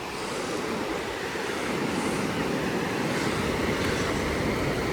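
Pacific Ocean surf washing onto the beach: a steady rush that grows a little louder after about a second.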